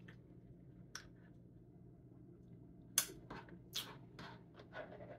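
Quiet eating sounds of a spoon and a mouthful of soft food: one short click about a second in, then a quick run of five or six short sharp clicks and scrapes from about three seconds in as the spoon works in the bowl and the food is eaten.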